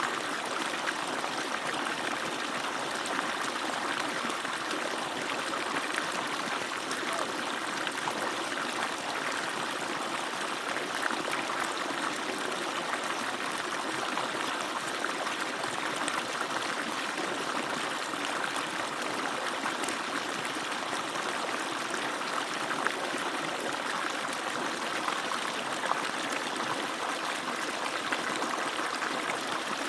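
Water pouring steadily out of an agricultural irrigation pump's outlet and splashing down in an even, unbroken flow.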